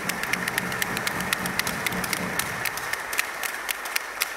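A large crowd applauding: dense, steady clapping that dies away just after the end.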